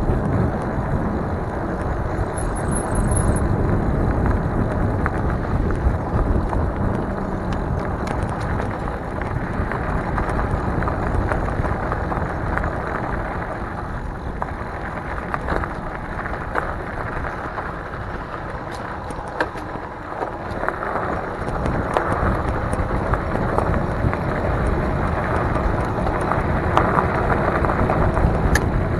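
Wind rushing over the microphone and tyre rumble from an electric bike rolling along a paved, then dirt and gravel, path at about 10 to 15 mph, with scattered clicks and rattles from the bike.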